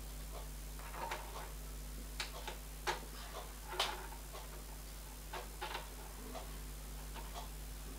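Irregular small clicks and taps from a metal workpiece being handled and set down on a milling machine's vise and table, the two loudest about three and four seconds in, over a low steady hum.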